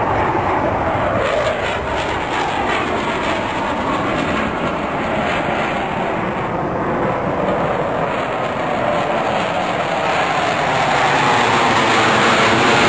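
Blue Angels F/A-18 Hornet jet flying over with a steady, loud engine roar whose tone slowly sweeps as it passes. The roar swells louder near the end.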